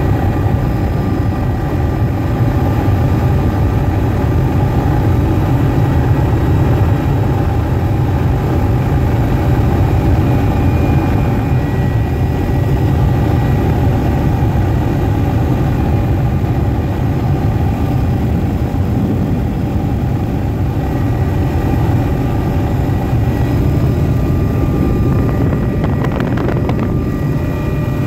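Helicopter's engine and rotor noise heard from inside the cabin: a loud, steady deep drone with a few thin, steady whining tones above it.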